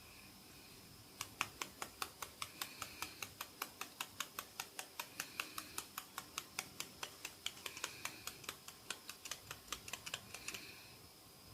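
Rapid, even tapping on the head during a massage: about five sharp clicks a second, starting about a second in and stopping shortly before the end.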